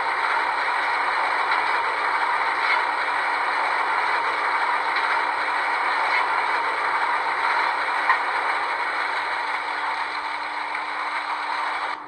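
Locoman DCC steam sound played by a Zimo decoder through a small double iPhone-type speaker in the tender of a Hornby Stanier 8F 2-8-0 model: a steady hiss of steam over a constant low hum, easing off a little near the end.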